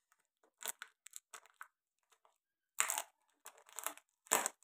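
Packing tape being peeled and torn off the end of a cardboard mailing tube, in short irregular rips and crinkles, the loudest about three seconds in and again near the end.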